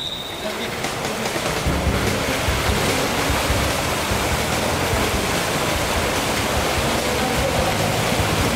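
Swimmers doing front crawl in a pool: steady splashing and churning water, with a short high tone at the very start.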